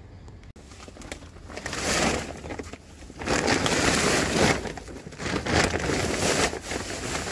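Soil-and-compost mix being poured into a garden container, coming in three long rushes of about a second each.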